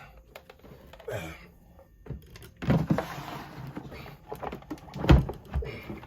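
Knocks and scraping from a LiFePO4 prismatic cell pack being fitted into a plastic battery box. The sharpest knock comes about five seconds in.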